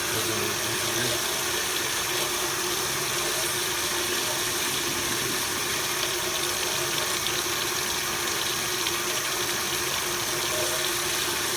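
Water running steadily from a dual-handle Moen kitchen faucet into the sink, an even, unbroken hiss.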